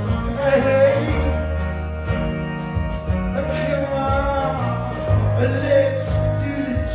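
A live band playing a song: a bass line moving between held notes, drums with regular cymbal hits, and a singer holding and sliding long notes over it.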